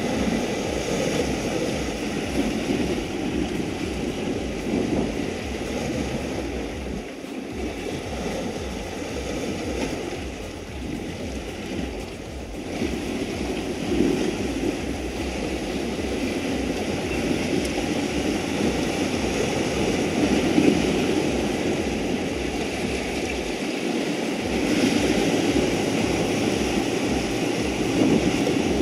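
Sea surf washing and breaking against a rocky shoreline, a continuous rush that swells in surges, with wind buffeting the microphone.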